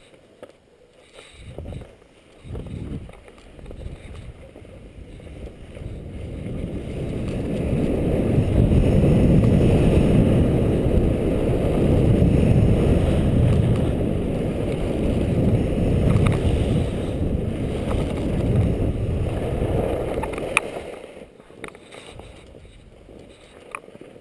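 Wind rushing over a helmet-mounted camera's microphone while skiing downhill, building up as speed rises, staying loud for about twelve seconds, then dying down as the skier slows to a stop near the end.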